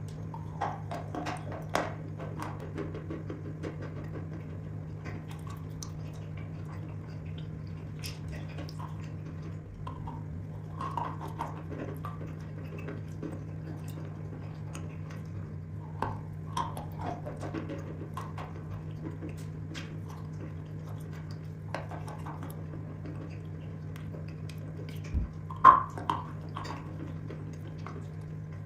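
Wet chalk being bitten and chewed, with scattered short crunches and clicks over a steady low hum; the loudest crunches come a few seconds before the end.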